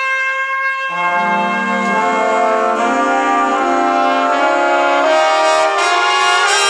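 Big band jazz: a solo trumpet holds a note, and about a second in the brass section of trumpets and trombones enters underneath with chords that climb steadily in pitch.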